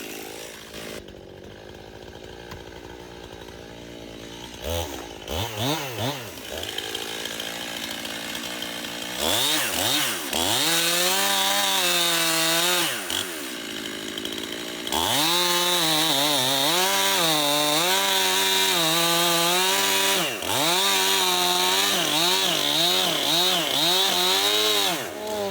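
Stihl MS291 two-stroke chainsaw idling, blipped a couple of times, then opened up to full throttle about nine seconds in, its pitch repeatedly dipping and recovering as it cuts through wood. It drops back to idle for a moment around the middle, then runs hard again until near the end.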